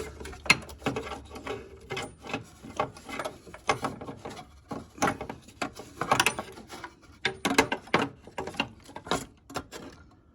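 Ratchet wrench clicking in short, irregular strokes as an oil pressure switch is tightened with an oil-switch socket, with small metal rattles from the tool.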